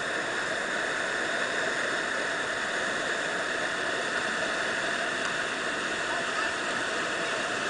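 Whitewater river rapids rushing, a steady even roar of churning water.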